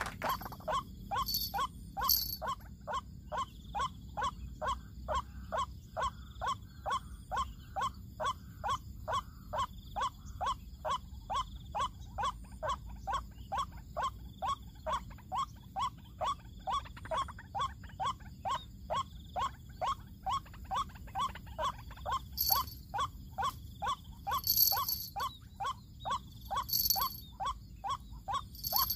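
White-breasted waterhen's 'kruak' call repeated over and over at an even pace of about two calls a second, the steady lure call used to draw waterhens into a snare. A few brief high chirps sound near the start and again near the end.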